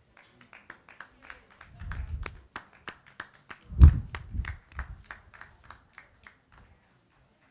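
Scattered clapping from a small audience, a few pairs of hands, that thins out and stops about six and a half seconds in. Low thuds, likely a microphone being bumped, come about two seconds in and again, loudest of all, near four seconds.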